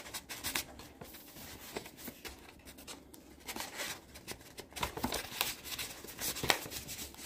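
A vinyl single and its card sleeve being handled: irregular rustling and scraping of paper and card with scattered light taps, busiest about five seconds in and peaking again shortly after.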